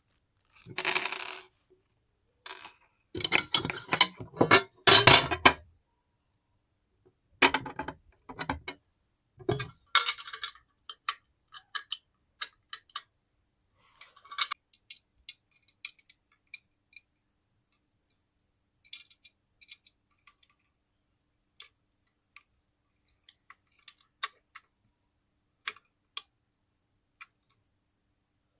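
Handling of perfume packaging and a glass perfume bottle: a few rustling, scraping bursts in the first six seconds, then scattered light clicks and clinks.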